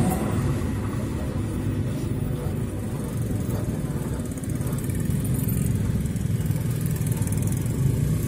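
Small motorcycle and scooter engines idling and pulling away as a crowd of riders crosses the tracks, growing a little louder about halfway through. The passing freight train's noise drops away at the very start.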